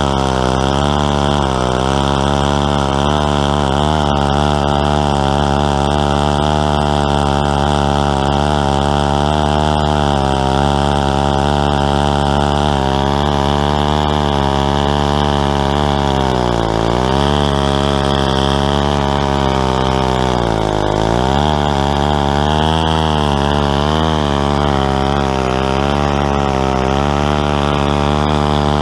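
Stihl 090 two-stroke chainsaw running at high speed under load, ripping lengthwise through a tulip poplar log in a chainsaw mill. The engine pitch wavers as the cut goes on and bogs down briefly twice past the middle.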